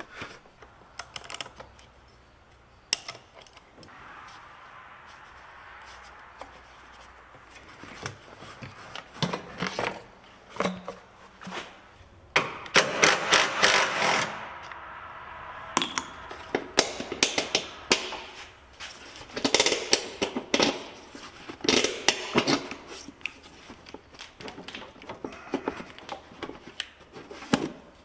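Hercules cordless ratchet running in several short bursts, the longest about halfway through, among clicks and knocks of the plastic air filter housing being handled.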